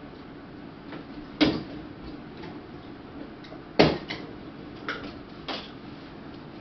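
A few sharp clicks and knocks from handling and unpacking the parts of a coated steel wire rolling cart, with two louder knocks about a second and a half in and just before four seconds, and lighter clicks after them.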